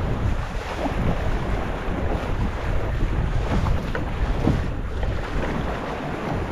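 Wind noise on the microphone over water rushing and splashing against the hull of a Sunfish sailboat moving through choppy water under sail.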